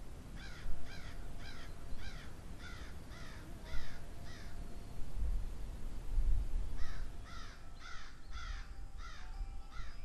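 A bird calling in two runs of short, harsh calls that slide downward, about two a second, over a low rumble.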